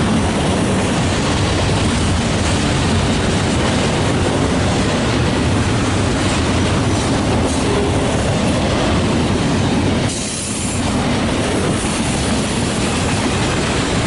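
Freight train rolling past: a steady, loud noise of wheels on rail, with a brief dip about ten seconds in.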